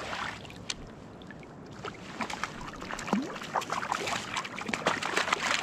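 A hooked trout thrashing and splashing at the surface of a shallow river close by, a quick run of small splashes that comes thicker in the second half as it is played toward the landing net, over the steady wash of the current.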